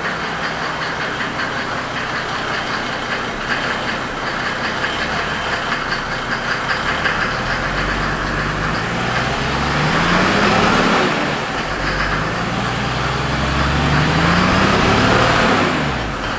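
1992 Mercedes 300SD's OM603 3.5-litre turbo-diesel inline-six idling, then revved up twice, its pitch rising and falling back each time.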